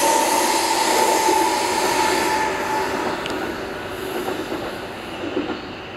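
CRH380-series high-speed train running at speed: a loud rushing rail noise with a steady whine. The whine stops about halfway through, and the noise fades away over the second half as the train moves off.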